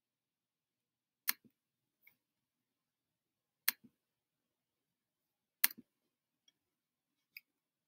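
Three sharp computer mouse clicks, each a press followed a moment later by a softer release click, with a few faint ticks between them.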